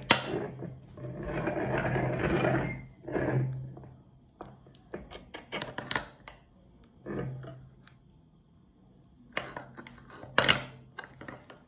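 Meat grinder working through ice cream: irregular bursts of grinding and clattering with sharp metallic clicks and knocks, the longest stretch lasting about two seconds near the start.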